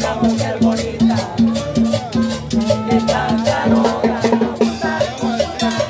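Upbeat Latin dance music with a steady beat: a bass note pulsing on each beat under busy percussion.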